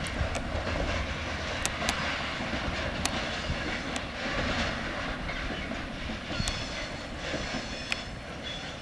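Freight train of covered hopper wagons rolling past on the rails, with a steady rumble and occasional sharp clicks from the wheels. The sound slowly fades as the end of the train moves away.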